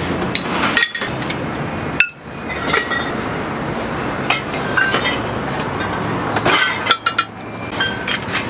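A metal spoon clinking and scraping against a small skillet: a scatter of sharp clinks with short metallic ringing, over a steady low background rumble.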